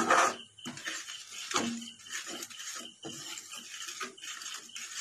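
A spoon stirring and scraping around a kadai, mixing milk powder into sugar syrup, in repeated scrapes with two louder clunks against the pan, at the start and about a second and a half in.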